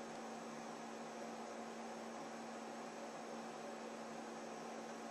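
Faint, steady electrical hum with background hiss: one low tone held without change.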